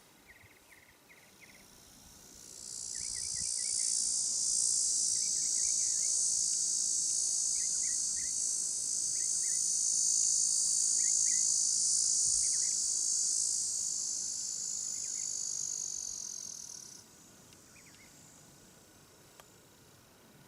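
A high, hissing insect buzz that swells in a couple of seconds in, holds steady for about fourteen seconds and cuts off abruptly, over faint short chirps that recur every second or so.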